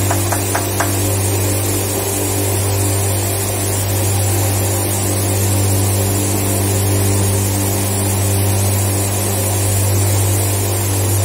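Steady hum of factory machinery: a strong, unchanging low drone with overtones over a constant rushing noise. A few light clicks occur in the first second.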